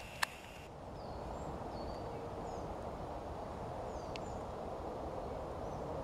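Forest ambience: a steady outdoor noise with a few faint, thin bird chirps high above it, and a single sharp click just at the start.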